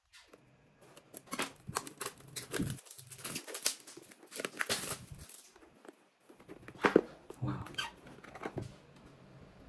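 Cardboard retail box being unsealed and opened by hand: irregular crackling, tearing and rustling of the seal, paper and card for a few seconds, then a single sharp snap about seven seconds in, followed by lighter rustling of the paper insert.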